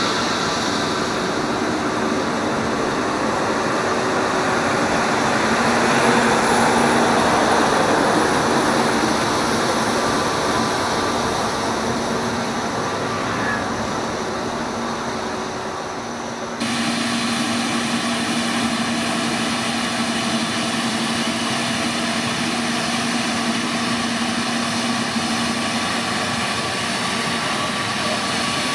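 Airbus A321neo's jet engines running at taxi power as the airliner rolls past, a steady whine with a held hum that swells about six to eight seconds in. Some sixteen seconds in the sound switches abruptly to a slightly different steady engine drone with a clearer low hum.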